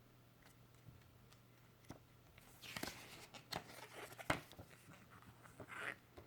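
Packaging being handled during an unboxing: rustling and crinkling with several sharp clicks and taps, starting about halfway in, with one louder click in the middle and another rustle near the end.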